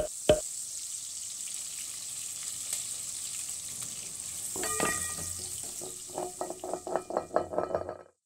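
A steady sizzling hiss like food frying in hot oil, with a single knock near the start. About halfway in, a run of quick plucked melodic notes joins it, and both stop abruptly just before the end.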